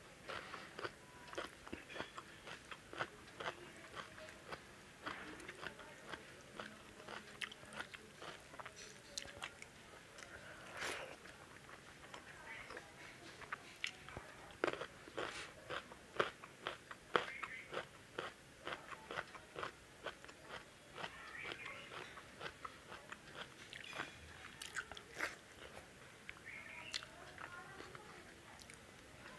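Close-miked chewing and mouth sounds of a person eating rice and lauki kofta curry: a continuous run of short wet smacks and clicks.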